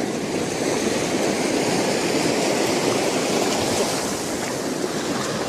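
Steady wash of water at a shoreline, an even rushing noise with no pauses.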